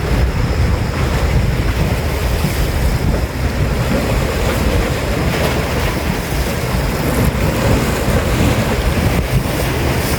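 Wind buffeting the microphone in a loud, steady rumble, over the wash of lake waves.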